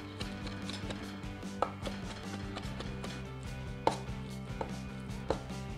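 Cleaver chopping bacon on a wooden cutting board: a fast, even run of knife strokes mincing the meat, with a few harder knocks among them.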